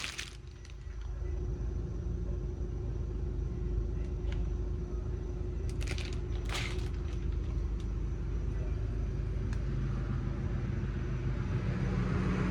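Steady low rumble of an idling car, with two brief knocks or rustles about six seconds in.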